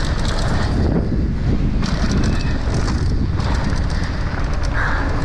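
Mountain bike riding fast down a dry dirt jump trail: knobby tyres rolling over hard-packed dirt and loose stones, with the bike rattling and clicking over the rough ground and heavy wind rushing over the microphone.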